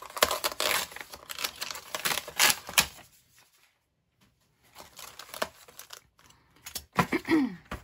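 Crinkling and rustling of a clear plastic packet holding a small metal cutting die, along with the paper card of the calendar door, as they are handled in quick crackly bursts. The handling stops for about a second and a half midway, then resumes.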